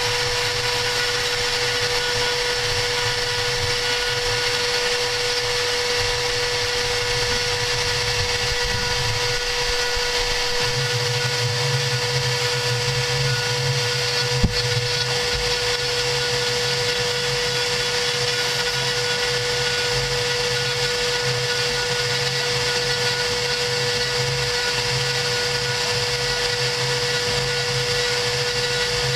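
CNC router spindle running with a steady whine while its V-bit engraves a design into a 3 mm cardboard sheet. A low hum beneath it shifts about a third of the way in, and a single sharp click comes about halfway through.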